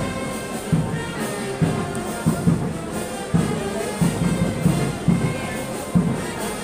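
Brass band playing procession music, with trumpets and trombones over a steady drum beat.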